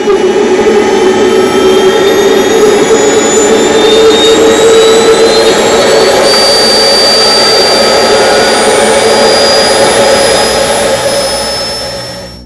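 Kingtech KP60 model turboprop turbine running and spooling up: its whine rises steadily in pitch under a steady drone from the turbine and five-blade propeller. It fades out near the end.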